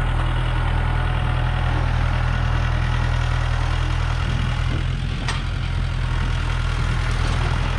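Steady low drone of a running engine or motor, unchanging throughout, with one sharp click about five seconds in.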